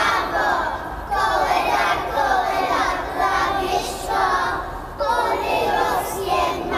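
A group of young children singing together in unison, in phrases broken by short pauses about one second and five seconds in.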